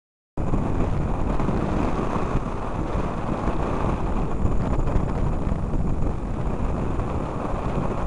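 Wind buffeting the microphone of a camera mounted on a hang glider in flight in strong wind: a loud, steady, deep rush that starts abruptly about half a second in.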